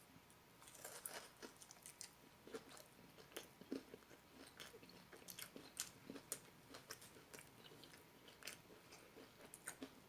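A person chewing a mouthful of soft-battered buffalo chicken tender: faint, irregular small clicks and smacks of the mouth.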